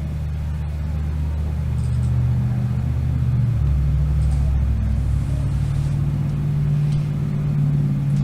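Motor vehicle engine running with a deep, steady rumble, its pitch shifting a few seconds in.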